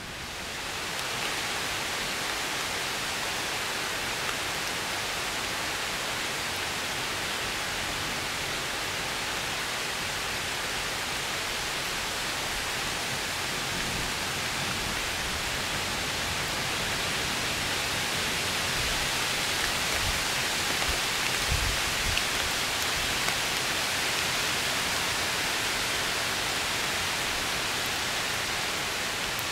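Heavy rain pouring down onto the forest canopy: a steady, even hiss.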